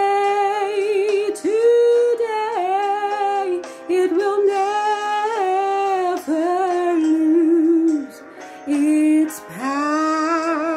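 A woman singing a gospel hymn, drawing out long notes with a wide vibrato, with a brief pause for breath about eight seconds in.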